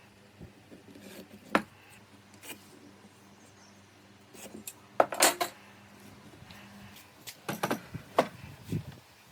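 Scattered clicks and light knocks of small hard objects being handled, some with a metallic clink. The loudest cluster comes about five seconds in and a few more follow near the end, over a faint steady hum.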